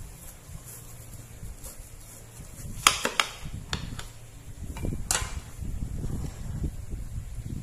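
A long kitchen knife cutting crosswise through watermelon wedges on a plate, with sharp clicks and knocks as the blade and the cut pieces strike the plate beneath. The loudest click comes about three seconds in, with another about five seconds in.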